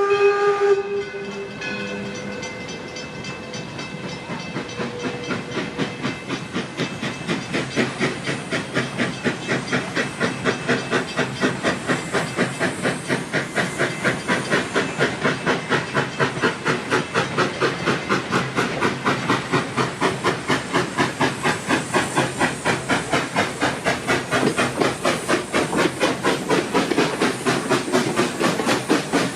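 Baldwin 4-4-0 steam locomotive D&LN No. 7: its steam whistle cuts off about a second in, then the engine starts away, its exhaust chuffing steadily faster and louder as the train gathers speed.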